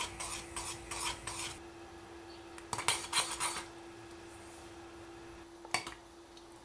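Metal spoon stirring and scraping thick, starch-thickened strawberry sauce against a stainless steel saucepan. There is a quick run of strokes at the start, a few more around three seconds in, and a single clink of the spoon near the end.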